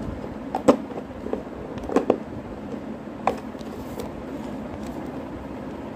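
Blunt scissors working slowly through a hard plastic shampoo bottle, with a few sharp snips and plastic clicks against a steady background hiss. The blades are dull and the bottle is tough, so each cut takes effort.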